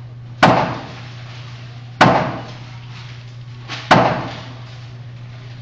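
Three gunshots, about one and a half to two seconds apart, each a sharp crack with a short ringing tail.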